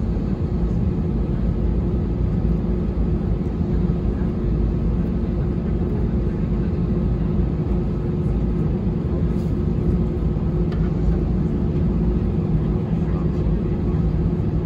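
Cabin noise of an Airbus A320-216 taxiing, heard from a window seat over the wing: its CFM56 engines run at low taxi thrust as a steady rumble with a constant low hum.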